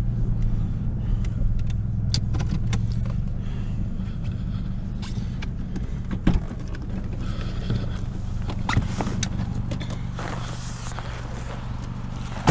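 Car engine idling, heard from inside the cabin as a steady low hum, with scattered clicks and knocks of handling and a sharp knock at the very end.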